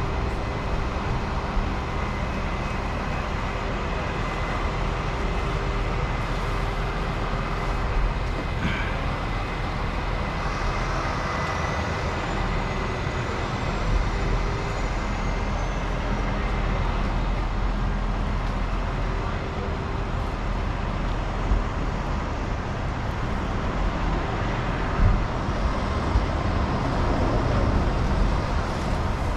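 A heavy machine's engine running steadily at an even speed, with a few faint knocks.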